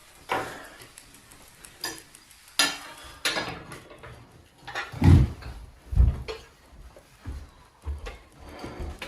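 A series of separate knocks and clatters, several short and sharp, with two heavy, deep thumps about five and six seconds in.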